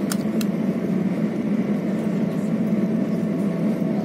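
Steady low rumble inside a moving high-speed EMU passenger train, with two light clicks right at the start.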